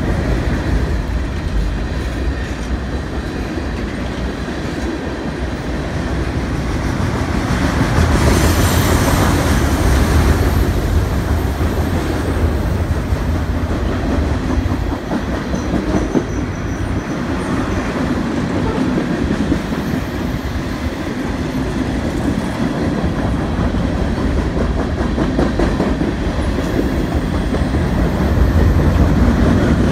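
Freight train cars (tank cars, then boxcars) rolling past steadily, with a continuous low rumble and wheels clattering over the rail joints. Brief faint high-pitched wheel squeals come now and then.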